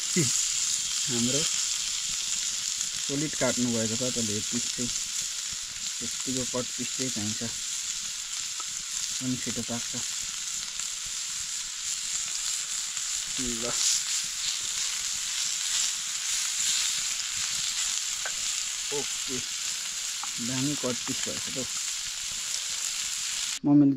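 Slices of pork sizzling steadily as they fry on a flat iron pan over a wood fire. The sizzle cuts off suddenly near the end.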